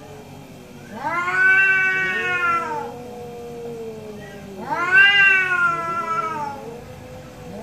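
Two orange tabby cats yowling at each other in an angry standoff. A low, drawn-out yowl runs on underneath, and twice a loud wail rises and falls, each lasting about two seconds: once about a second in and again about halfway through. These are the threat calls of a territorial face-off.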